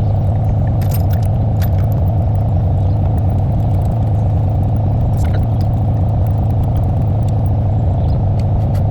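Vehicle engine idling steadily, with a few short metallic clinks and rattles about a second in and again about five seconds in.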